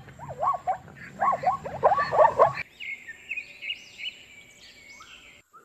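A plains zebra calling: a quick run of pitched, yelping barks over a rough, breathy rasp. About two and a half seconds in, it cuts off sharply and a European robin sings a high, thin warbling phrase.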